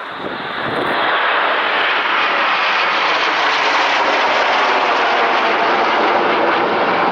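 Formation of jet aircraft flying past, their engine roar building over about the first second and then holding loud and steady.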